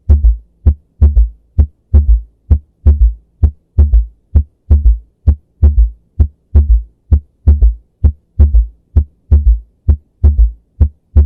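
Heart sounds heard through a stethoscope: a steady repeating rhythm of low thumps, each beat carrying an extra third heart sound (S3) after the usual lub-dub. The S3 is attributed to blood rushing into the ventricles during filling in diastole.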